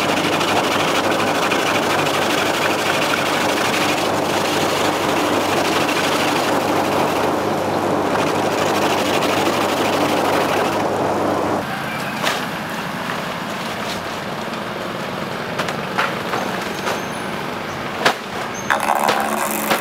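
A motor-driven machine runs with a steady hum, then cuts off abruptly about twelve seconds in. After that come scattered sharp knocks and clicks.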